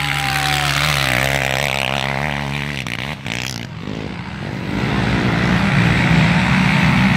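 ATV quad engines running under load as quads climb a steep dirt hill track. The engine sound dips about halfway through, then grows louder again near the end.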